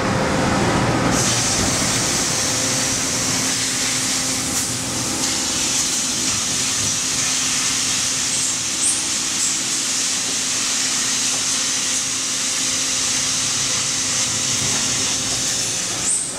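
Kitamura Mycenter 3X CNC vertical machining center running with its pallet changer: a steady air hiss over a faint, even machine hum.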